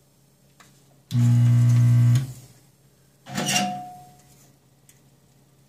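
Vacuum desoldering gun's built-in pump buzzing steadily for about a second as it sucks molten solder from a DRAM chip's pin still holding in a small through-hole, followed about two seconds later by a shorter, noisier sound that fades away.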